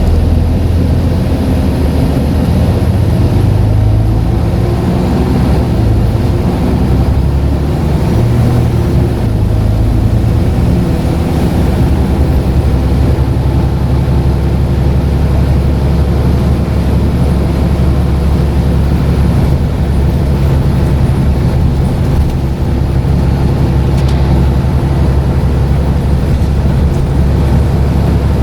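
Scania N94UD double-decker bus's diesel engine running under way. Its note shifts up and down over the first dozen seconds or so, as with acceleration and gear changes through the ZF automatic gearbox, then settles into a steady drone.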